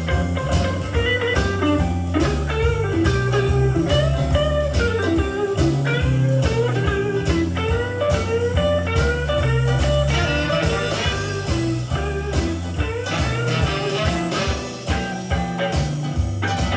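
Blues-rock music with electric guitar and bass, played back from a cassette tape on a Sony TC-K555ESA deck.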